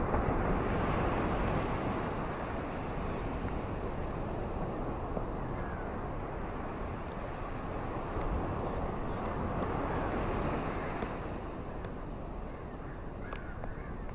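Rain falling in blustery wind: a steady rushing noise that swells near the start and again about eight seconds in, then eases.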